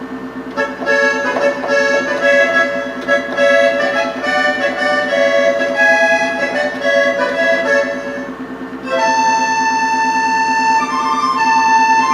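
Roland D-50 synthesizer playing its accordion patch: a melody of short notes over a steady held low note, moving to longer held notes about nine seconds in.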